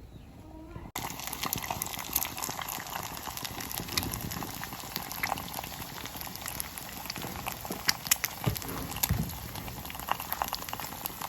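Egg frying in hot oil in a pan: steady sizzling with many sharp crackling pops, starting abruptly about a second in.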